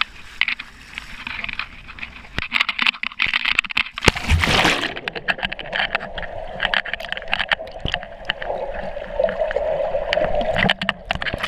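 A swimmer plunging into a pool about four seconds in makes one loud splash. After it comes muffled underwater bubbling and gurgling, heard through the GoPro's waterproof housing, with scattered clicks.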